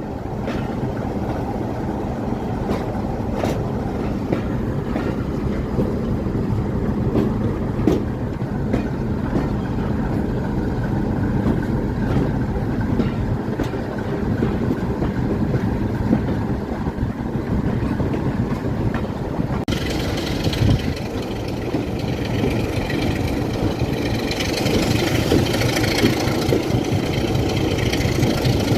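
Railway train running on the track, a steady low rumble with scattered clicks; about twenty seconds in, the sound turns brighter and hissier.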